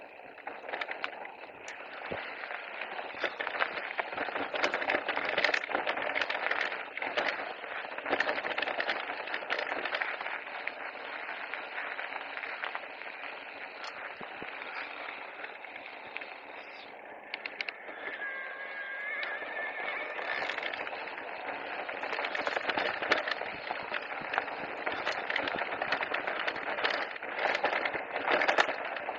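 E-mountain bike being ridden over rough ground: a steady rush of tyre and wind noise with many small rattling knocks from the bike. A thin high whine sounds briefly about two-thirds of the way through.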